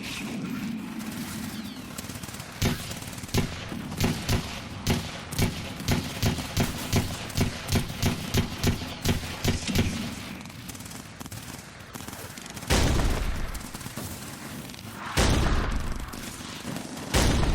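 Mock battle gunfire: a run of rapid shots, about three a second, for several seconds, then three heavier blasts like explosions in the second half.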